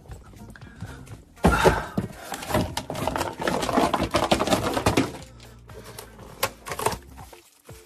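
Cardboard shipping box being torn open and handled by hand, a loud crackling rip and rustle of cardboard for about three and a half seconds. After it come a couple of sharp snips from scissors cutting packing tape.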